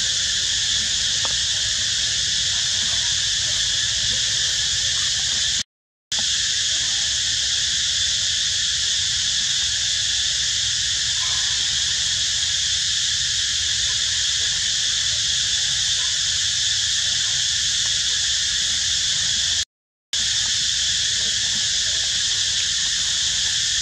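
Steady, high-pitched buzzing of an insect chorus, cut off to silence briefly twice.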